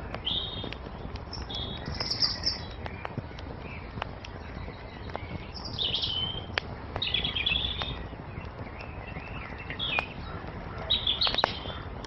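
Small songbirds chirping and singing in short phrases over the snapping and crackling of a burning wood fire, with a soft steady rumble of flame beneath.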